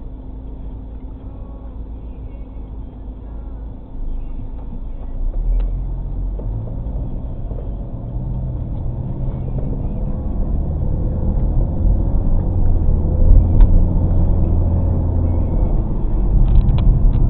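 Car running at a standstill with a steady low hum, then pulling away about four seconds in and accelerating, its engine and tyre noise building and growing louder. Heard from inside the cabin.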